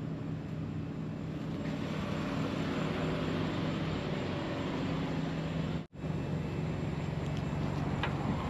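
A steady low mechanical hum, like an idling engine or a running machine, over a haze of background noise. It cuts out briefly about six seconds in.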